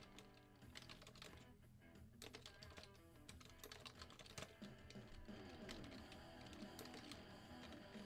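Faint typing on a computer keyboard, a run of quick, irregular key clicks, over quiet background music.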